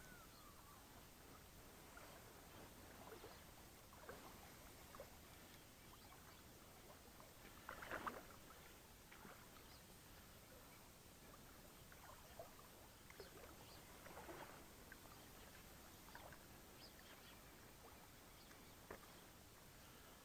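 Faint, intermittent water splashes from a hooked trout swirling at the surface as it is played in, the loudest about eight seconds in, over a low hiss.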